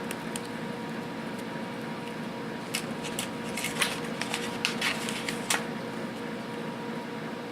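Thick paper being folded and creased by hand: a handful of short crinkles and rubs in the middle, over a steady hum.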